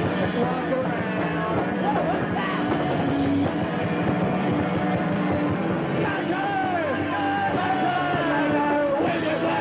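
Live rock band playing: electric guitars, keyboard and drums, continuous and loud throughout.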